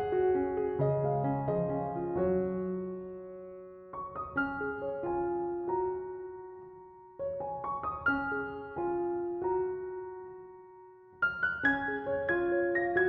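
Background piano music, slow notes struck and left to ring and fade, in phrases.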